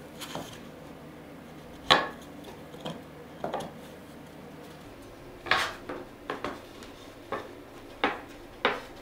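Plywood panels knocking and clacking against one another and the workbench as they are stood up and fitted together: about ten sharp, separate knocks, the loudest about two seconds in and a quicker run of them in the second half.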